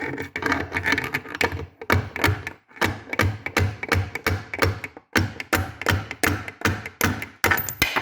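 Background music with a steady beat and sharp percussive hits.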